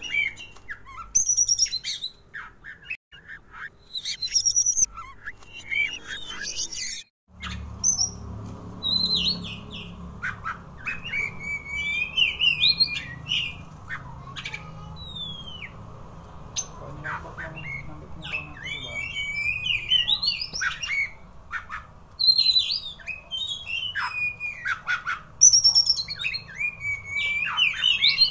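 Oriental magpie-robin singing in full display: loud, varied phrases of whistles, chirps and harsh squawks, over and over. About seven seconds in the sound cuts out briefly, and after that a low hum runs beneath the song.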